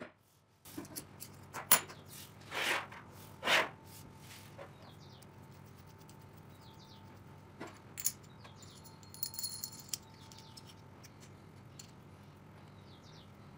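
Small steel hardware being handled: a bolt, hex nuts and flat washers clicking and clinking against each other and the steel tube as a nut and washer are fitted onto the bolt. Scattered sharp clicks, with two louder scrapes about three seconds in.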